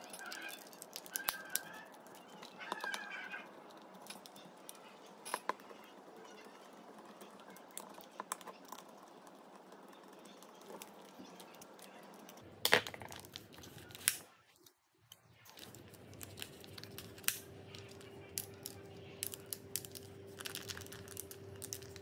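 Scattered light clicks and taps from the plastic housing of a Black+Decker KC4815 cordless screwdriver being handled and closed back up, with one sharper knock about halfway through.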